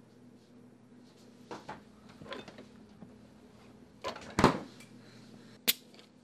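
A refrigerator door pulled open with a clatter, followed a second or so later by one sharp click as a beer bottle's cap is opened.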